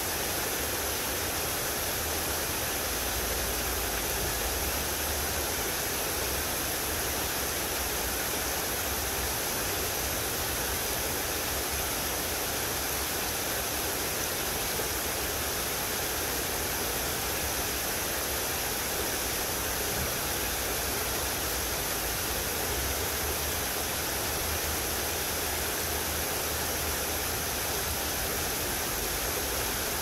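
Creek water rushing over rocks in shallow rapids: a steady, even rush of whitewater, with a low rumble that swells and fades a few times.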